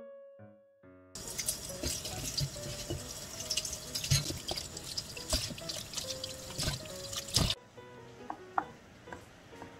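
Shiitake mushrooms being washed by hand under running water: a steady hiss of water with splashes and drips. Near the end the water stops and a kitchen knife taps a few times on a plastic cutting board as the mushrooms are trimmed and sliced.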